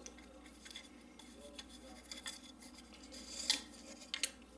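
Faint scattered clicks and rubbing as a crossbow's cord stringer, with plastic limb-tip cups, is unhooked and handled, a little louder about three and a half seconds in.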